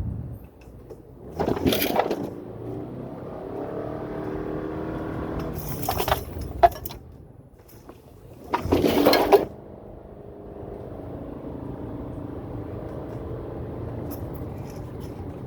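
Inside the cabin of a 2018 Subaru Forester 2.5i on the move: the 2.5-litre flat-four drones steadily under its CVT, its pitch shifting a little. Three short, loud rushing noises cut across it: one near the start, a brief one midway, and a longer one about two-thirds through.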